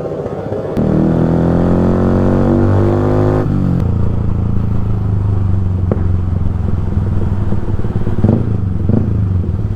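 Yamaha R15's single-cylinder engine through an Akrapovic full-system exhaust, loud: the revs climb for a couple of seconds, drop sharply about three and a half seconds in, then hold steady at a lower pitch.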